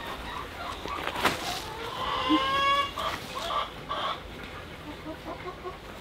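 Chickens clucking, with one drawn-out call about two seconds in and a sharp knock just before it.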